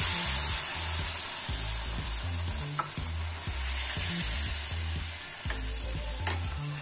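Water hissing and bubbling as it hits hot ghee and roasted moong dal paste in a pan, stirred with a wooden spatula. The sizzle is loudest at first and dies down steadily as the water takes up the heat.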